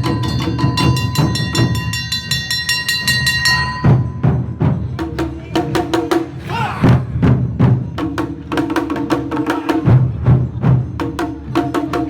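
Awa Odori festival band playing: drums and percussion struck in a quick, steady beat, with sustained pitched notes over the top.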